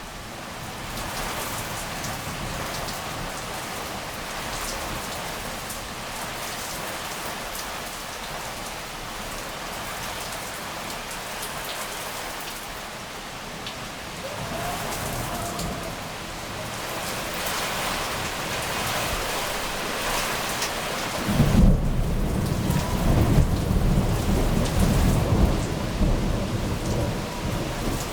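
Heavy rain falling steadily in a thunderstorm. About three-quarters of the way through, thunder breaks in suddenly, a loud low rumble that rolls on with several surges to the end.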